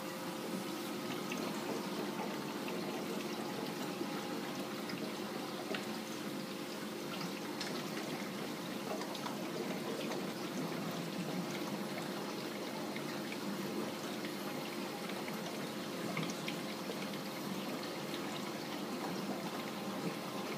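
Reef aquarium water running and trickling steadily, with a low steady hum underneath.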